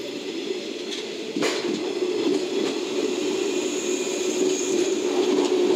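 JR West 113-series electric train running past close by, its wheels and motors getting steadily louder with a steady low whine. A single sharp clack about a second and a half in.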